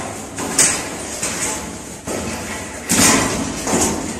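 Scraping and rustling of a bundle of insulated electrical wires being handled and pulled at a ceiling junction box, with a few louder scrapes, the loudest about three seconds in.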